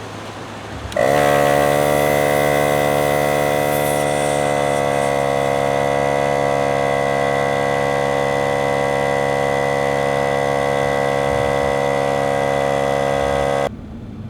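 Pittsburgh Automotive portable 12-volt air compressor running while inflating a tire. It starts about a second in, settling slightly in pitch as it comes under load, runs with a steady pitched drone, and cuts off suddenly near the end.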